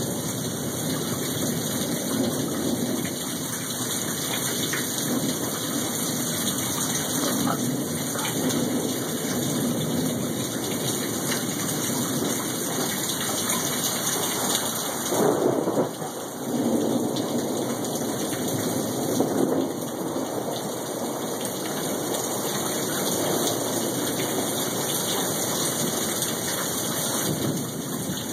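Thunderstorm: steady rain with thunder rumbling, swelling loudest about halfway through and again a few seconds later.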